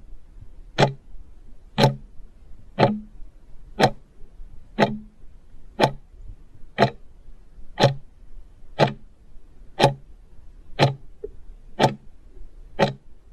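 Clock ticking, one sharp tick about every second: a countdown-timer sound effect that gives the time to answer a quiz question.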